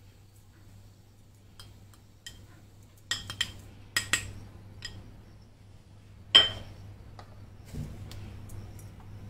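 Dishes clinking against a stainless steel mixing bowl as spices are tapped off a plate onto raw chicken: several sharp ringing taps, with one loudest clink about two-thirds of the way through.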